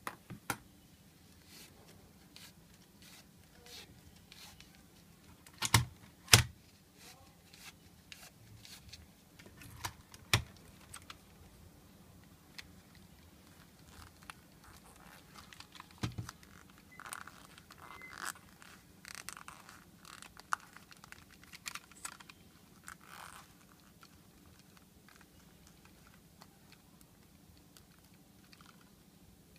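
Plastic headphone earcups being handled: scattered sharp clicks and knocks, loudest a few seconds in and again about ten seconds in. Past the middle comes a stretch of scraping and rubbing as an ear pad is worked onto an earcup's rim.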